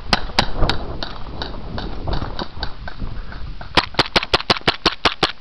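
CO2 airsoft pistols firing: three sharp snaps in the first second, fainter pops through the middle, then a rapid string of shots, several a second, from about four seconds in.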